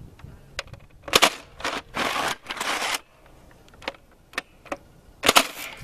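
Nerf Mega Centurion blaster firing a dart with a sharp snap about a second in, followed by several rasping plastic slides as its priming handle is worked, a few light clicks, and another sharp shot near the end.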